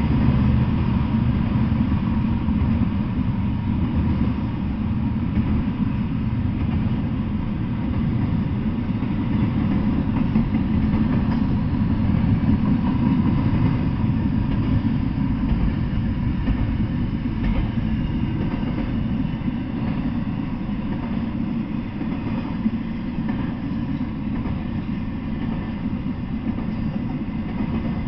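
Double-stack intermodal freight train passing, its cars rolling by with a steady low rumble.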